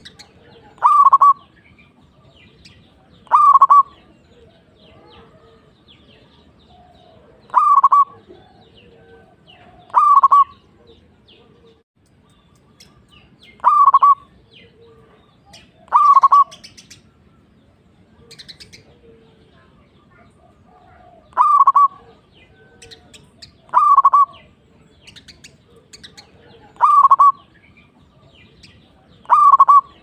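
Zebra dove (local perkutut) calling: about ten short cooing calls, each about half a second, repeated every two to four seconds. Faint high chirps of small birds sound between them.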